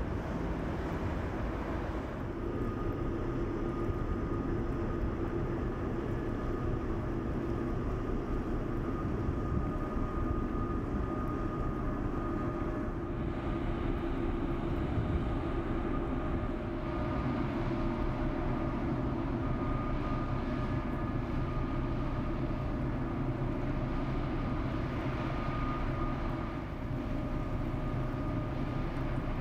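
Inland motor cargo ship's diesel engine droning steadily as it passes, with a few steady humming tones over the rush of water along the hull.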